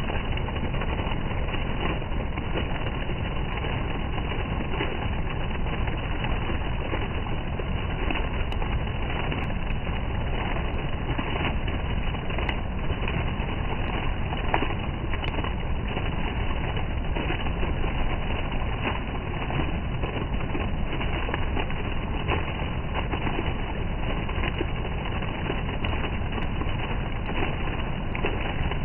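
Water from a garden fountain jet and a small cascade splashing into a stone pool: a steady rushing, splashing sound.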